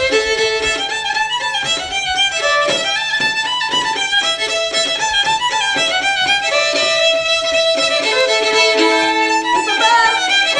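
Old-time fiddle tune: a fiddle playing a melody of quick, changing notes.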